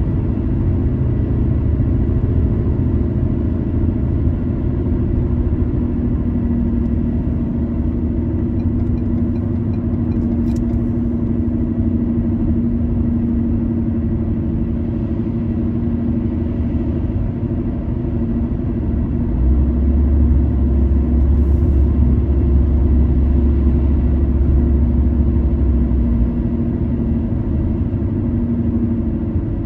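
A car driving, with steady road and engine rumble and a low steady hum. A deeper, louder rumble comes in about 19 seconds in and fades about 26 seconds in.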